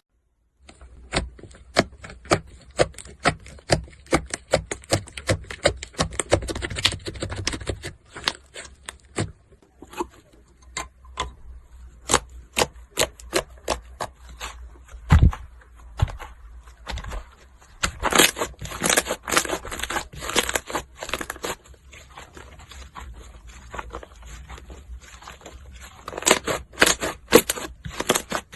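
Slime being pressed and worked by hand, giving a quick run of sharp clicks and pops, sometimes several a second, with brief pauses between bursts.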